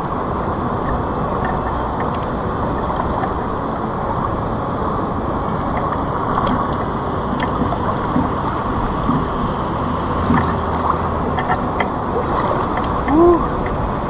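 Fast river current rushing and splashing around a person's legs as they wade waist-deep through rapids: a steady wash of water noise with small splashes.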